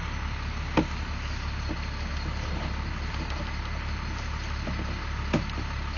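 Steady low engine hum, like a vehicle idling, with two faint clicks, about a second in and near the end.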